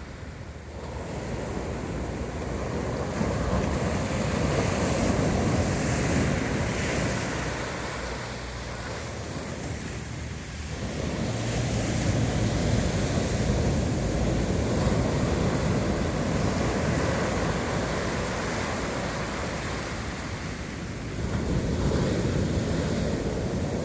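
Sea waves breaking and washing on the shore in slow surges that swell and ebb every several seconds, with some wind on the microphone.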